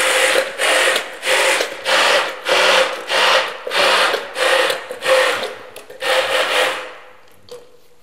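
Immersion (stick) blender puréeing wild garlic oil with pine nuts in a tall beaker. A steady motor whine runs under a churning noise that surges about twice a second, and it stops about seven seconds in.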